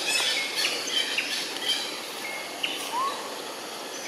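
Birds chirping in short, scattered calls over a steady outdoor hiss, with one brief rising note about three seconds in.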